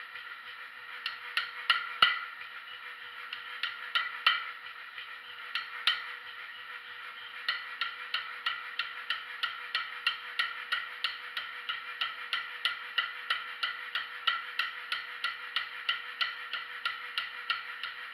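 Hand hammer striking a spring swage on a bar of hot steel, forming a ball between the swage's half-sphere dies. A few scattered, heavier blows at first, then quick, even strikes about three a second from about seven seconds in.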